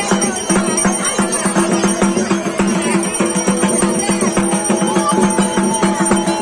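Traditional festival music: rapid drum and bell strokes over a steady droning wind instrument.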